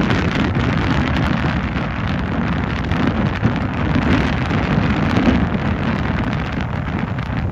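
Steady, loud wind buffeting the microphone.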